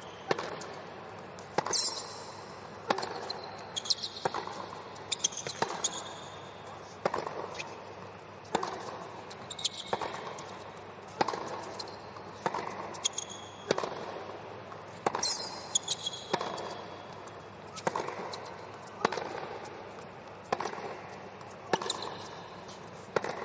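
Tennis ball struck back and forth in a long baseline rally on a hard court: sharp racket hits roughly every second and a quarter, with the ball's bounces between them and a few high, short shoe squeaks.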